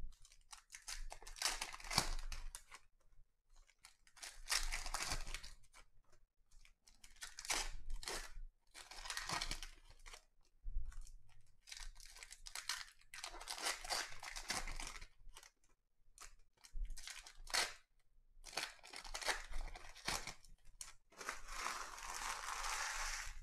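Foil wrappers of 2020 Donruss Optic football card packs being torn open and crinkled, in repeated bursts every couple of seconds.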